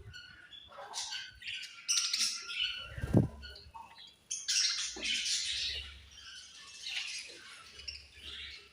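Many budgerigars chirping together in a dense, overlapping chorus of short calls, with a single thump about three seconds in.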